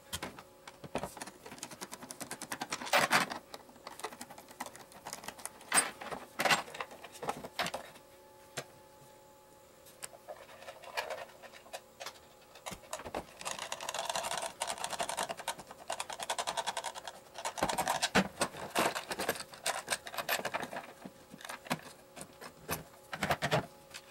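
Small metal parts and tools being handled during disassembly of an airsoft gearbox: scattered clicks and taps, with two longer stretches of rattling and scraping about halfway through and again a little later.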